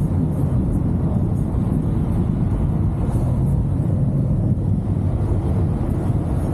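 2023 Chevrolet Camaro SS driving at a steady pace, its 6.2-litre V8 and tyres making a steady low noise with no change in pitch.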